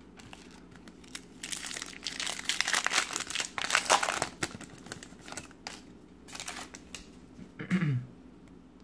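Shiny foil wrapper of a Topps Finest basketball card pack crinkling and tearing as it is opened by hand, a dense spell of about three seconds followed by scattered lighter crinkles. Near the end comes a brief low sound with a falling pitch.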